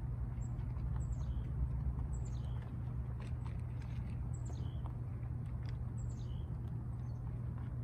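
Small birds chirping outside, about six short calls that slide down in pitch, over a steady low rumble. Faint crunching comes from rabbits chewing their feed from a bowl.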